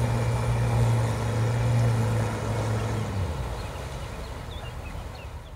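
Engine of an Amphicar amphibious car running steadily as it motors through river water, a low drone over the rush of its bow spray and wake. The drone fades away about three seconds in, leaving the water and ambient noise.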